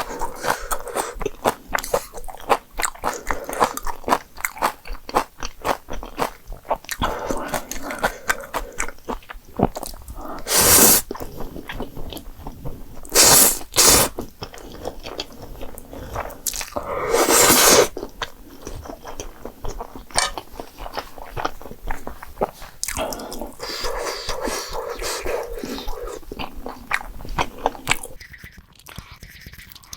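Close-miked chewing of jjapagetti noodles and green onion kimchi: a steady run of wet mouth clicks. A few louder hissing bursts cut in, two short ones about halfway through and a longer one a little later, and the chewing grows quieter near the end.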